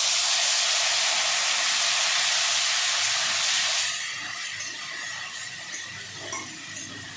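Wet spice paste sizzling loudly as it hits hot oil in a metal kadai, the first stage of frying the masala. The sizzle eases about four seconds in to a quieter, steady sizzle as the paste is stirred.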